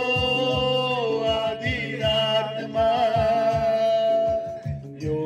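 A song playing: a singer holds long, slightly wavering notes over a steady drum beat and bass.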